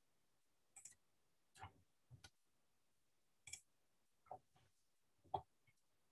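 Near silence broken by about seven faint, scattered clicks and taps, the loudest a little over five seconds in.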